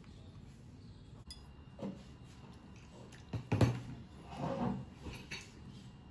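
Metal knife and fork clinking and scraping against a ceramic plate while cutting a piece of cooked fish: a few separate clinks, the loudest about halfway through.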